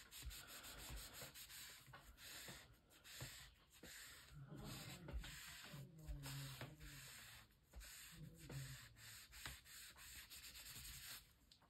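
Faint, irregular rubbing strokes of a wadded paper tissue over a small paper card, pressing the freshly glued card down onto textured paper.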